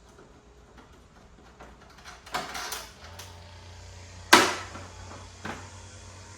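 Scattered clicks and knocks of hand tools, cables and parts being handled, loudest a single sharp knock about four seconds in. A low steady hum comes in about three seconds in.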